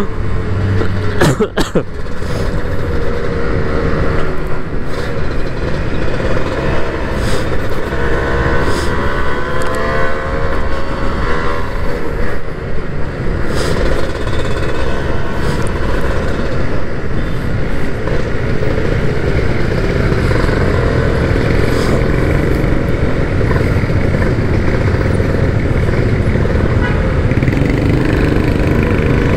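Kawasaki Ninja R 150cc single-cylinder two-stroke engine running while riding in traffic, its pitch rising and falling with the throttle and gear changes, over steady wind and road rush.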